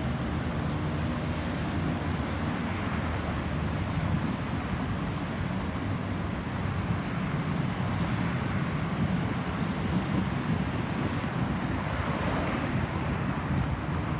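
Steady road traffic noise with a low vehicle rumble; no siren is heard.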